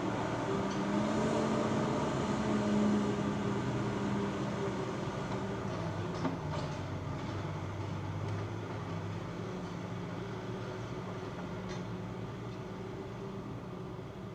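Steady low hum of a distant engine, slowly fading.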